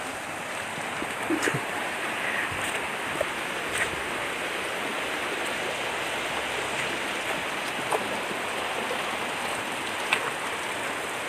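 River water flowing, a steady hiss, with a few scattered sharp clicks.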